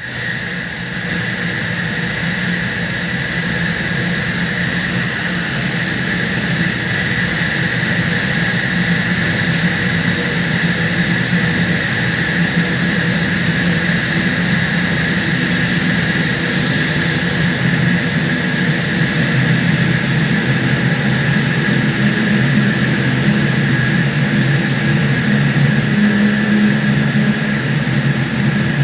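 A 1300-ton centrifugal water chiller's compressor running with a huge, steady noise and a high whine, slowly getting a little louder: the noise of the chiller surging.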